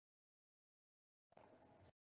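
Near silence: dead air with no audible sound.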